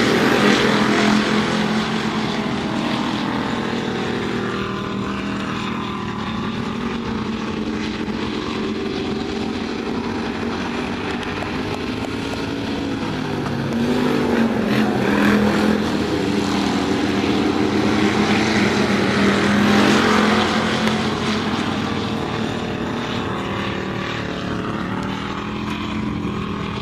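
Several IMCA hobby stock race cars' engines running hard around a dirt oval, the pitch rising and falling as the cars accelerate and lift for the turns. The sound is louder in the middle as the cars pass close by.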